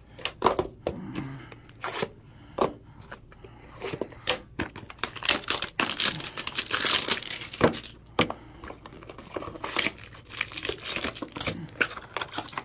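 Clear plastic wrapping of a trading-card hanger pack being torn open and crinkled by hand: irregular crackling and rustling, densest about six to seven and a half seconds in and again near the end.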